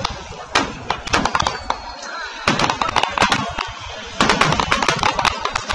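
Aerial firework shells bursting: a rapid, irregular string of sharp bangs and crackles, thickest about halfway through and again near the end.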